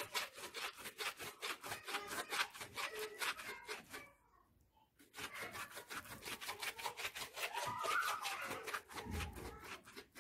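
Fast, rhythmic rubbing and scraping strokes, about six a second, pausing for about a second midway.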